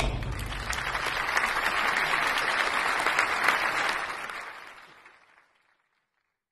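Audience applauding as a song ends, fading out about four to five seconds in.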